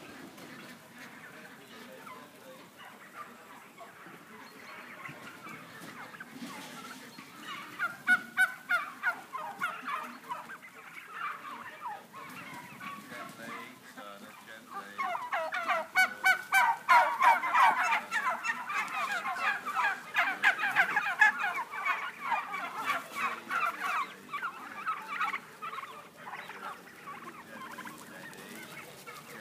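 A large flock of domestic white turkeys calling all together: a dense chorus of short overlapping calls that is faint at first, swells about eight seconds in, is loudest in the middle, and thins out near the end.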